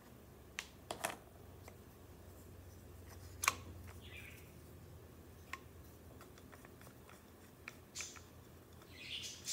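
Aluminum receiver tube and steel trigger group of a homemade Gevarm-based pistol mock-up being handled and taken apart: a few sharp metal clicks, the loudest about three and a half seconds in, with short sliding scrapes as the parts come apart near the end.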